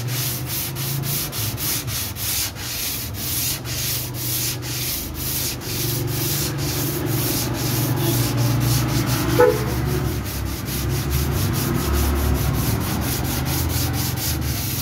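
Sandpaper on a hand sanding block rubbed back and forth over dried body filler on a car's rear quarter panel, in quick, even strokes about four a second. This is dry sanding of the filler to level the repair.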